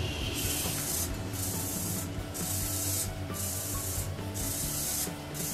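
Servo motors of a desktop six-axis robotic arm whirring as the arm moves, a hissing noise broken by short gaps about once a second, over a steady low hum.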